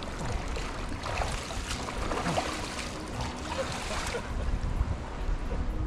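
River water running, with splashing from a person wading through it.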